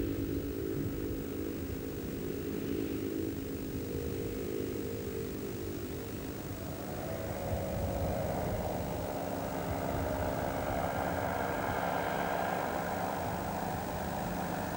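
A microlight's small two-stroke engine and propeller running steadily in flight. About six seconds in, the note changes: the lower drone fades and a higher one comes in.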